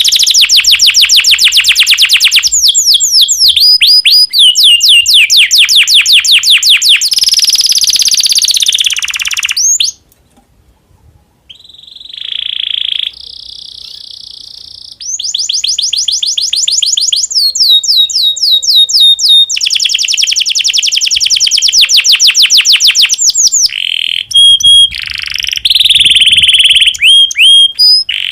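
Domestic canary singing in breeding condition: long, loud, high-pitched trills of rapidly repeated notes. The song breaks off for about a second and a half around ten seconds in, carries on with softer held notes, then returns to fast trills mixed with separate sweeping notes.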